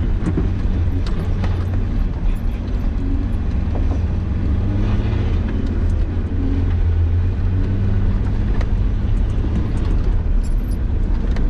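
Nissan Patrol Y60 4x4 engine running steadily with a deep, low hum while driving off-road, with scattered knocks and rattles throughout.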